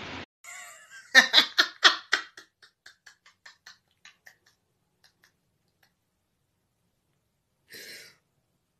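A woman's convulsive vocal outburst: a run of short, jerky pulses, about five a second, loud about a second in and dying away over some three seconds, then a single breath near the end.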